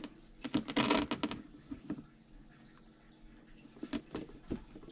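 A short crackling rustle of clicks about a second in, then a few light taps and clicks: a battery-powered siphon pump and its tubing being handled on a plastic tote lid.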